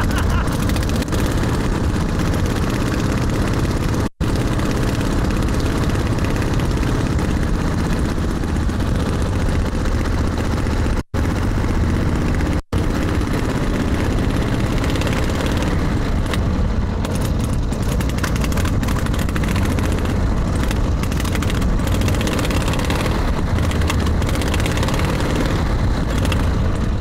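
Harley-Davidson motorcycle engine on a 1927 home-built light plane running steadily on the ground, driving its propeller with a loud, continuous drone.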